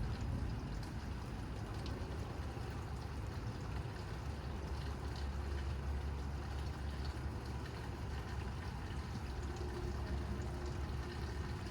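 Gusty storm wind buffeting the microphone: a steady low rushing noise that rises and falls slightly.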